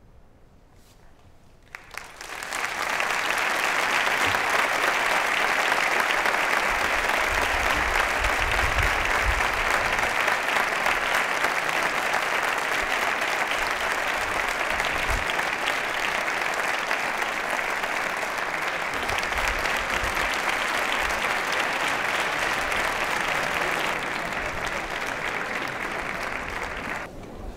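Large audience applauding: the clapping starts suddenly about two seconds in, holds steady and dense, eases a little near the end and stops shortly before the close.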